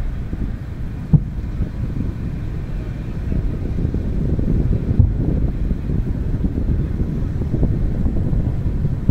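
Distant aerial fireworks going off over a steady low rumble of wind on the microphone and city noise, with two sharp booms, about a second in and about five seconds in.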